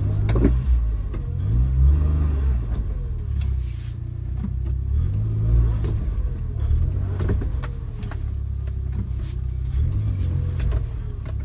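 Suzuki Jimny driving slowly, its engine pitch rising and falling again and again, with scattered short knocks and rattles.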